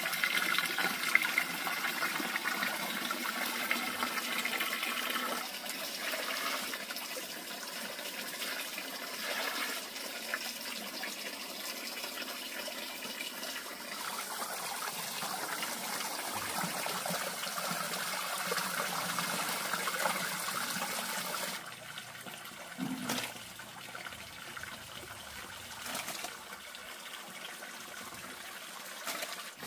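Hands squelching and sloshing through a basin of wet mash made of chopped greens and water. About two-thirds of the way in it gets quieter, with a few separate scoops of a ladle in the mash.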